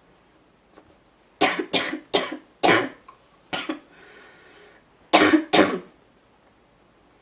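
A woman coughing while sick: a quick run of four coughs, a single cough, a drawn breath in, then two more coughs.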